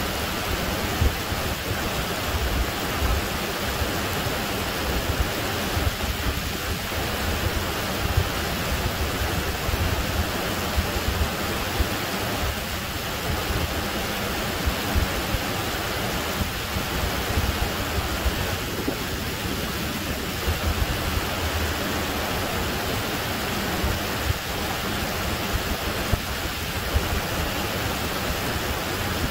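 Creek water rushing down a small rocky waterfall: a steady, unbroken rush of white water.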